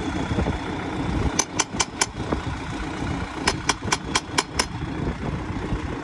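Ratchet wrench clicking as it is worked on the wheel nuts of a centre-pivot irrigator wheel, in two quick runs of clicks about four or five a second. Underneath, a front-loader tractor's engine idles steadily.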